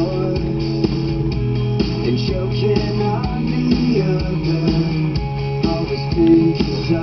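Guitar-led music playing at a steady level, with held notes over a low bass line.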